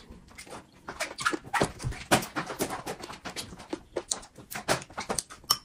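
Close-miked eating: chewing and lip-smacking with chopsticks clicking against a bowl, as many quick irregular clicks and smacks.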